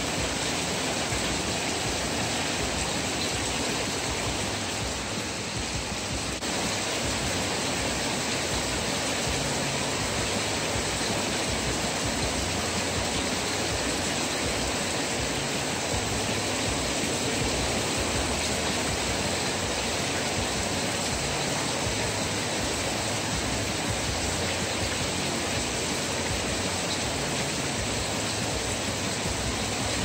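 Heavy rain falling steadily on a ribbed metal porch awning and pouring off its edge, an even, unbroken hiss.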